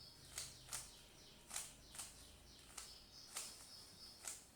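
Rubik's cube faces being turned by hand, a short plastic click with each turn, about eight at an uneven pace.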